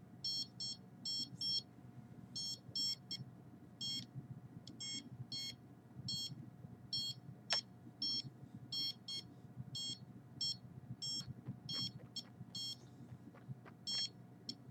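Handheld detector meter beeping in quick, uneven runs of short high-pitched beeps, its alarm sounding for high readings. A single sharp click about seven and a half seconds in.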